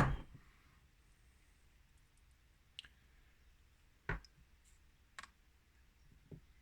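A sharp click at the start, then a few faint, separate clicks and taps about a second apart, from small parts of a disassembled lock cylinder being handled.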